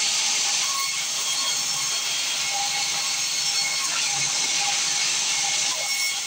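Sawmill saw cutting through wood, a steady high hiss of blade and sawdust with faint whining tones underneath.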